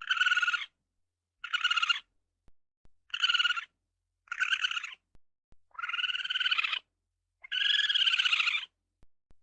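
Made-up raccoon calls, a sound effect: six separate buzzy, pitched calls with dead silence between them, the last two longer than the first four.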